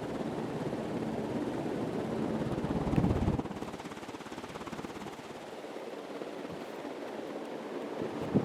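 1983 Casablanca Four Seasons ceiling fan running, its blades moving air with a steady low hum and its bearings quiet. About three seconds in there is a brief louder low rumble, after which the sound settles a little quieter.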